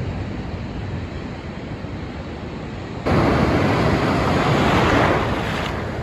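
Steady surf and wind noise on the microphone. About three seconds in, it gives way suddenly to the much louder rush of a wave breaking into whitewater, which eases off near the end.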